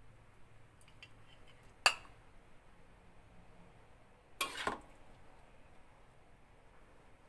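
Metal spatula clinking and scraping against a wok and a porcelain plate as food is served: one sharp clink about two seconds in, then a short scraping clatter a couple of seconds later, with a few faint taps.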